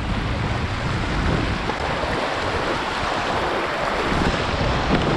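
Rushing water of river rapids around a kayak, with wind buffeting the microphone.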